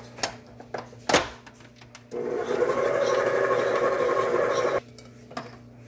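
Tilt-head stand mixer with a glass bowl, its motor starting up about two seconds in and running steadily for about three seconds before cutting off, as the beater mixes flour into cake batter. A sharp knock comes about a second in.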